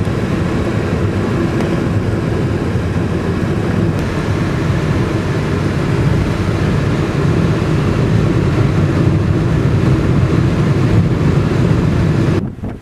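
Car driving at speed: steady engine and road noise heard inside the cabin. It drops off abruptly near the end.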